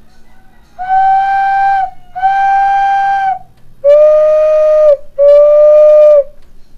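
Fired clay owl whistle in pre-Hispanic style being blown: four long, steady hoots, two slightly higher notes followed by two lower ones.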